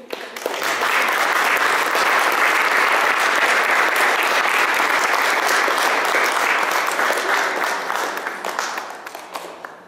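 Audience applauding. The clapping swells within the first second, holds steady, then dies away near the end.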